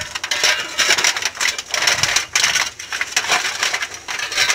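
Stones clattering and knocking together in quick, irregular clicks as heated rocks are stacked for a pachamanca earth oven.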